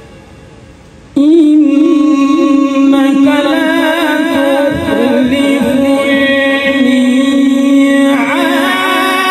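Melodic Quran recitation (tilawat) by a male qari. After about a second's lull the voice comes in loudly on one long, ornamented held note that wavers in pitch, and it moves on to a brighter new phrase about eight seconds in.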